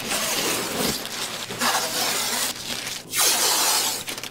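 Blue painter's tape pulled off the roll in several long ripping pulls, used to mask the truck's tires with plastic sheeting.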